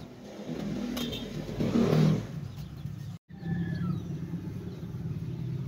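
A motor vehicle engine running steadily with a low hum, swelling to its loudest about two seconds in. The sound cuts out for a moment just past three seconds, then the hum carries on with a few faint bird chirps over it.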